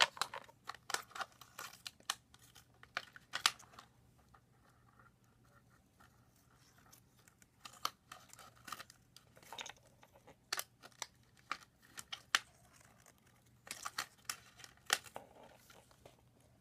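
Scissors snipping the thin plastic of a cut water bottle, trimming and rounding petal edges. Short, sharp snips come in irregular clusters with pauses between them.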